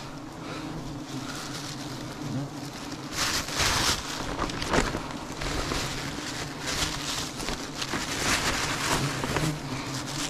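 A swarm of bees buzzing around the opened comb, a steady low hum. Over it a plastic bag crinkles and rustles, loudest a few seconds in.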